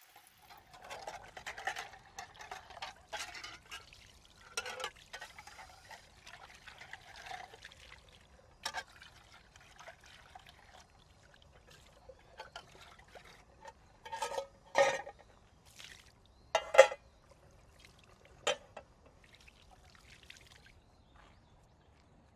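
Water pouring and splashing out of an aluminium army-style mess tin into a stone sink as it is rinsed, for the first several seconds. Then a few separate sharp metal clinks and knocks from the tin and its wire bail handle, the loudest about 17 seconds in.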